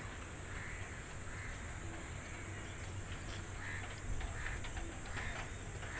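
Countryside ambience: a steady high insect hum with faint, scattered bird calls and a low steady rumble underneath.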